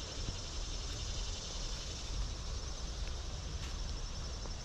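Steady outdoor background noise: a low, uneven rumble and an even high hiss, with no distinct sound standing out.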